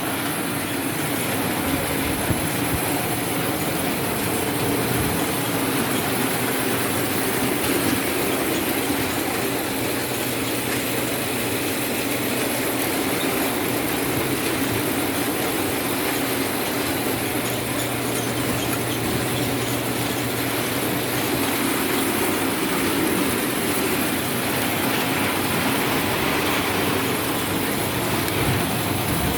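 Orange sorting machine running steadily: a continuous rattle of its rollers and conveyor with fruit tumbling along, over a steady low motor hum.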